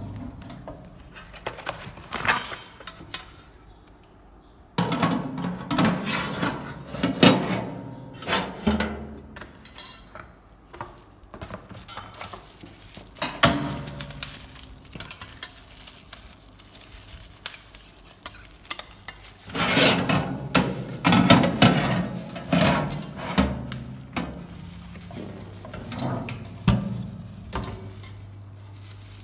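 Chrome wire rack of a Pensonic AE-19N electric oven being handled, clinking and rattling in irregular bursts, with crinkling of its plastic wrapping.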